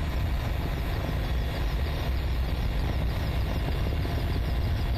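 Helicopter in flight, heard from on board: a steady low drone of engine and rotor.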